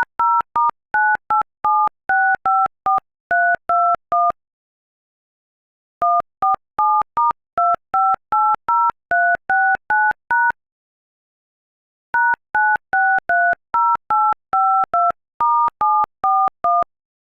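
Touch-tone telephone keypad dialing: three runs of about a dozen quick key beeps each, every beep two notes sounding together, with a gap of about a second and a half between runs.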